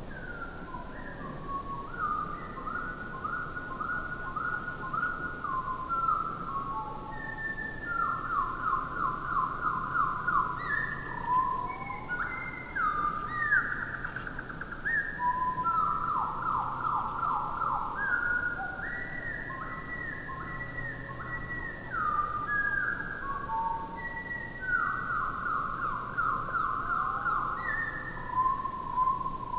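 Songbird song played back at a quarter speed, so it sounds like low, drawn-out whistles and slow trill runs. Several phrases follow one another and overlap.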